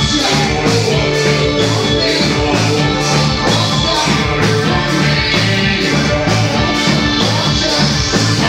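Live band music with guitar over a steady drum beat.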